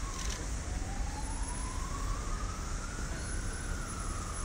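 A faint siren wailing, its single pitch sliding slowly up and down over several seconds, above steady background noise.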